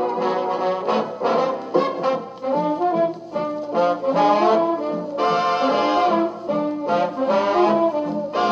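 Wurlitzer 41 countertop jukebox playing a 78 rpm big-band swing record: an instrumental passage with a steady swing beat and no singing.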